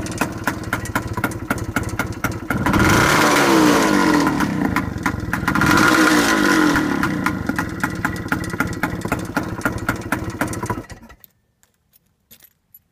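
1978 Suzuki TS185C's air-cooled two-stroke single idling loud through its stock exhaust with the spark arrestor/silencer missing. It is revved twice, each time rising and falling back to idle, and then shut off about eleven seconds in, leaving a few faint clicks.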